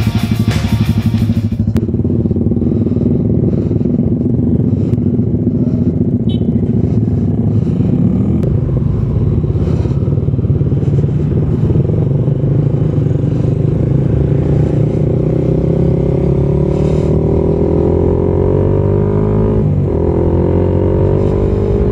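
Suzuki Raider 150 Fi single-cylinder four-stroke motorcycle engine under way, its pitch climbing steadily as it pulls through a gear, dropping sharply near the end at a gear change and then rising again. Background music fades out in the first two seconds.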